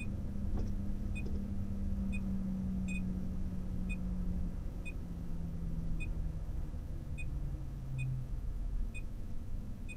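Vehicle engine and road rumble heard from inside the cab, with an engine hum that drops in pitch in steps. Short high beeps sound about once a second throughout.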